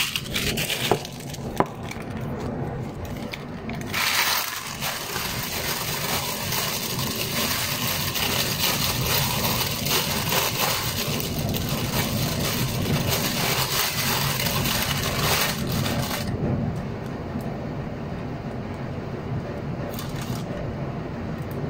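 A plastic bag rustling and crinkling as shredded mozzarella cheese is shaken and squeezed out of it into a bowl, with a couple of sharp clicks about a second in. The rustling is busiest in the middle and fainter for the last few seconds.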